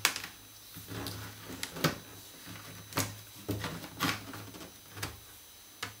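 Plastic clips of a Samsung Galaxy Tab 3 10.1's back cover clicking loose as a plastic opening pick is slid around the casing's edge: about ten sharp clicks at irregular intervals.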